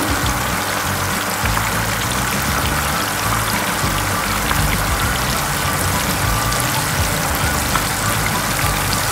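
Chicken pieces deep-frying in hot oil: a steady, continuous sizzle, with background music under it.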